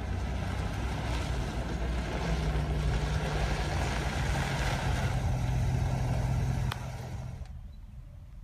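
Cadillac Fleetwood limousine's V8 engine running as the car drives slowly toward the camera, a steady low hum that rises slightly in pitch about two seconds in. About seven seconds in the sound drops off abruptly with a click to a much quieter level.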